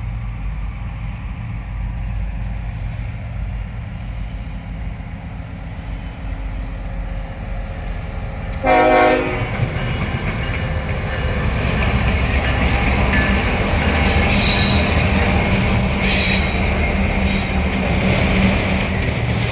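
Diesel freight locomotives approaching with a low engine rumble. About nine seconds in the locomotive horn gives one short blast. The train then passes with wheel clatter and high-pitched wheel squeal.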